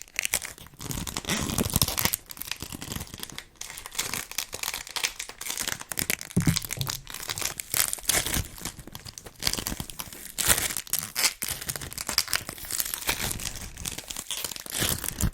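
Sticky ASMR toys, play foam and sticky cubes, being squeezed and pulled apart close to the microphone: dense crackling and sticky peeling with a few brief pauses.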